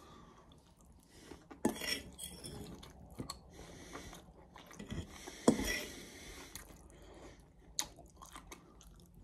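A metal fork clinking and scraping against a bowl, with chewing in between. The sharpest knock comes about five and a half seconds in.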